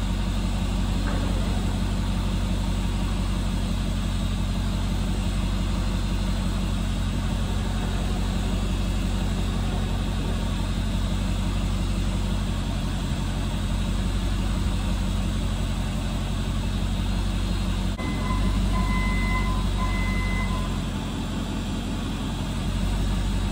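A vehicle engine running steadily, with two short high beeps about three-quarters of the way through.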